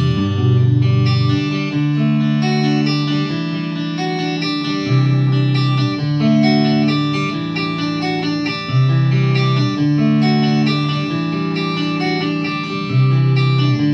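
PRS SE Custom 24 electric guitar with a roasted maple neck, played through a Marshall JCM2000 Dual Super Lead amplifier: a continuous melodic line of ringing, held notes over lower notes that change every one to two seconds.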